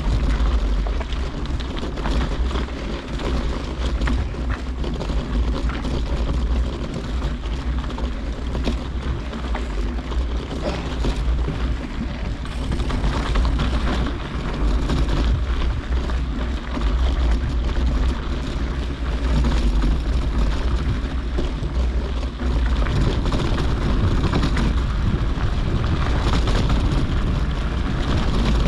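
Wind buffeting the microphone of a mountain biker's GoPro as a steady low rumble, over the rolling and rattling of the bike's tyres on a dirt track. The rumble grows heavier about three-quarters of the way through.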